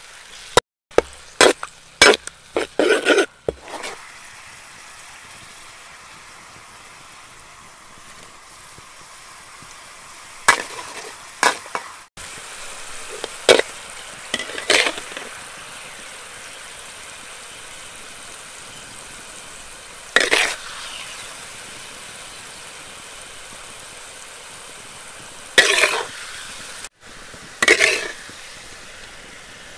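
Chilli sauce sizzling in a metal wok, a steady hiss, with a metal spatula scraping and clinking against the pan in short clusters of strokes several times.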